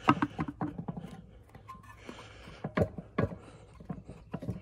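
Scattered clicks, knocks and a short scrape of metal engine parts being handled: a steel flex plate on a metal adapter plate being turned over while a part underneath is worked at by hand. The louder knocks come near the middle and toward the end, with a brief scraping about two seconds in.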